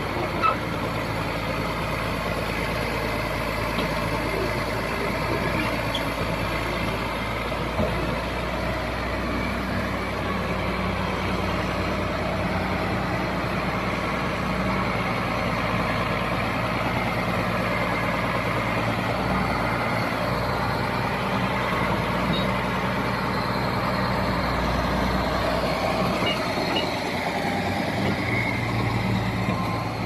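Caterpillar D6G crawler dozer's diesel engine running steadily while the machine drives.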